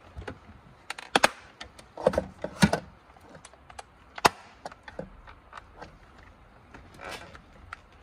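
Sharp plastic clicks and snaps, with some scraping and rubbing, as the painted cover cap of a Hyundai Palisade side mirror is pried off its plastic housing by hand. The loudest snaps come in the first three seconds, and there is another sharp one just after four seconds.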